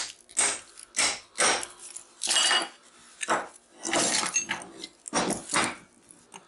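Metal tool work on a scrapped transformer's copper coil: repeated scraping, clinking strokes, about two a second at first, then slower and longer ones.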